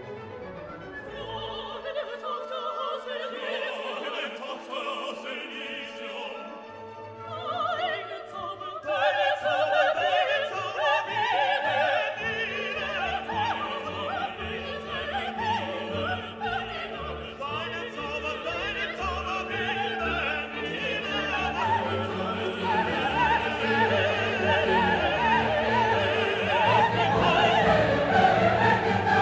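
Classical orchestral music with operatic singing, quiet at first and swelling louder about a quarter of the way in.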